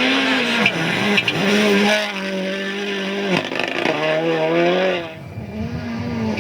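Rally car engine at high revs, its pitch climbing and dropping several times as it shifts gear and lifts off. A steady hiss runs under it. The engine eases near the end.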